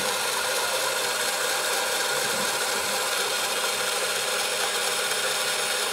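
Small battery-powered egg-decorating spinner running steadily, its motor and gears whirring as it turns an egg.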